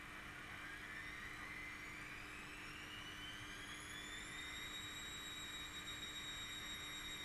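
Washing machine motor whine rising in pitch as the drum speeds up, levelling off about four seconds in and holding steady, over a low steady hum.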